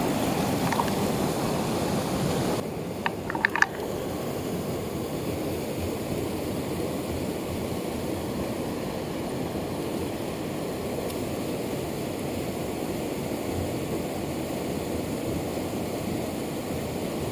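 Rushing water of a mountain torrent pouring over rocks into a pool: a steady roar. A quick run of sharp clicks sounds about three seconds in.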